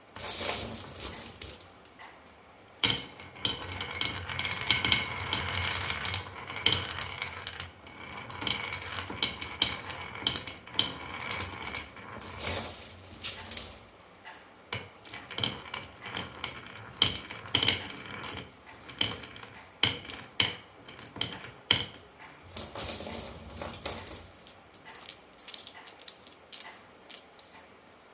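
Marbles rolling and clacking down a wooden HABA marble run: dense, irregular clicks and rattles with some ringing tones.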